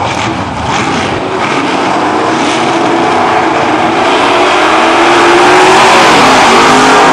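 Drag racing cars' engines revving at the start line, then launching and accelerating hard down the strip at full throttle. The engine pitch climbs in several rising sweeps, and the sound grows loudest near the end.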